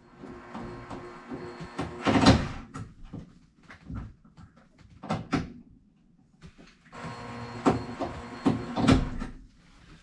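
Cordless drill running in two bursts of about two seconds each, several seconds apart, with knocks and clicks between them.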